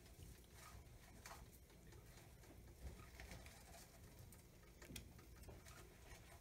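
Near silence with a few faint scattered ticks and crackles: whole spices in oil in a nonstick pan, starting to crackle as the oil heats.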